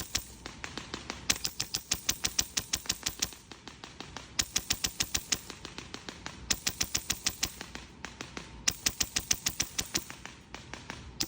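HPA airsoft rifle with a PolarStar Fusion Engine, set to about 85 psi, firing in repeated full-auto bursts. Each burst is a quick run of sharp clicks, about ten shots a second, lasting one to two seconds, with short pauses between bursts.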